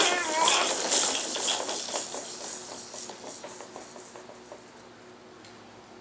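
Baby jumper's toys and frame rattling and clicking as a baby bounces in it, with a short wavering squeal from the baby in the first second; the rattling fades away over the next few seconds.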